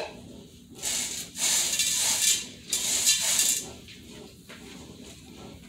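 Dried black beans rattling and rustling in a stainless steel pot as a hand stirs through them, in three short bursts.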